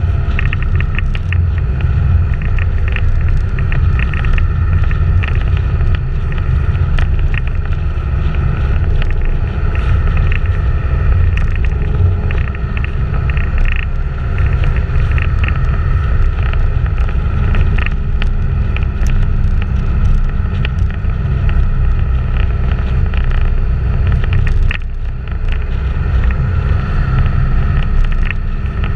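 Wind buffeting the microphone of a camera on a bicycle at racing speed: a loud, steady low rumble mixed with tyre and road noise, with many small clicks and rattles.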